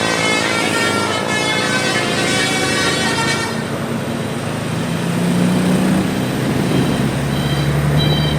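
Bus telolet musical air horns sounding a run of changing notes, over a running engine. About halfway through, the horn notes stop and a lower, steady drone carries on.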